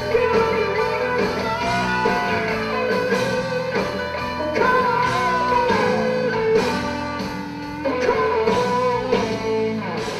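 A live hard rock band playing: electric guitars over bass and drums, with a male lead vocal sung into a microphone.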